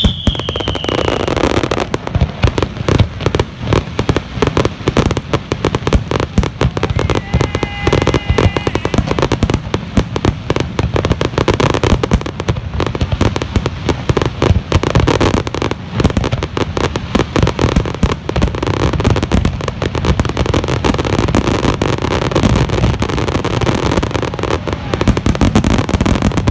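Aerial fireworks shells bursting in a dense, unbroken barrage, many bangs a second overlapping one another.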